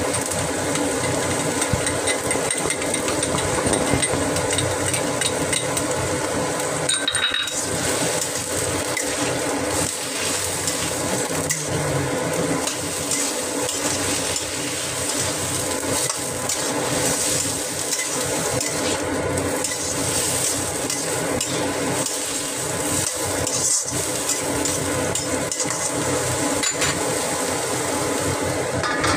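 Metal spatula stirring and scraping celery and cashew nuts in a wok, with sizzling and repeated clinks against the pan. A steady mechanical hum runs underneath.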